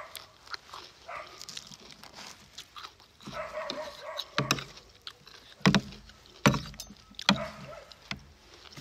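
Close-up eating sounds: a cucumber salad with squid and noodles being chewed and worked with metal forks in a plastic tray, a run of crunches and sharp clicks. Three louder clacks come a little past the middle.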